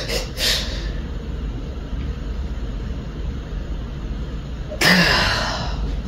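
A man's hard breaths out between sets: a quick puff just after the start and a louder, briefly voiced huff near the end, over a steady low hum.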